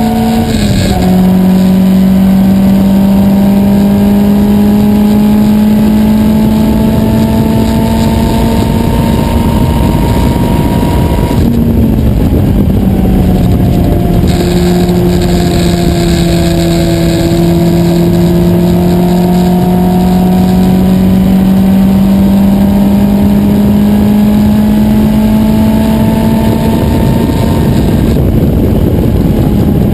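Lola Mk1 sports racer's four-cylinder Coventry Climax engine heard from the open cockpit, running at part throttle with its note climbing slowly and dropping in pitch three times: about a second in, about eleven seconds in, and near the end. Heavy wind and road noise runs under the engine.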